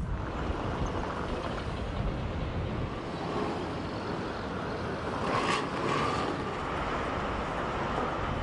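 Steady street traffic noise, an even rumble and hiss of passing vehicles, with a brief louder swell about five and a half seconds in.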